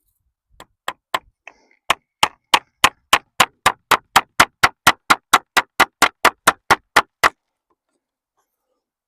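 Hammer driving a nail into wood: a few light taps, then a quick, even run of about twenty sharp blows at three to four a second that stops suddenly about seven seconds in.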